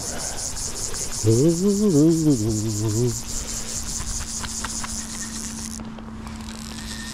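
A high, rapidly pulsing buzz that stops about six seconds in. Between about one and three seconds in, a man's voice makes a brief wordless murmur, the loudest sound here, and a faint steady hum follows it.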